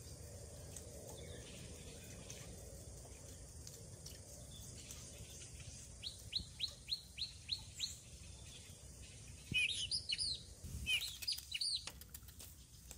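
A bird calling a rapid run of short, high, falling chirps about halfway through, then more chirps mixed with a few sharp clicks near the end, over faint outdoor background noise.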